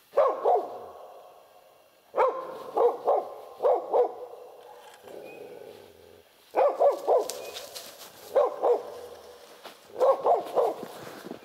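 A hunting laika barking at a marten treed in a birch, the baying bark of a dog holding game. The barks come in short runs of two to four, every couple of seconds, with a brief lull in the middle.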